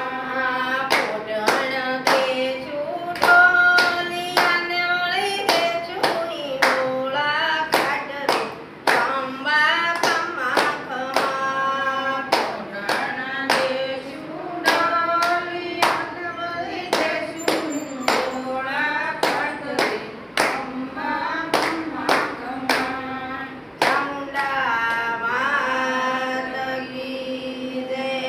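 Group of women singing a devotional song to the goddess Chamunda together, with hand claps keeping a steady beat about twice a second.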